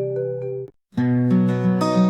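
Background music: a soft plucked melody that cuts off about two-thirds of a second in, a brief gap of silence, then a strummed acoustic guitar track starting about a second in.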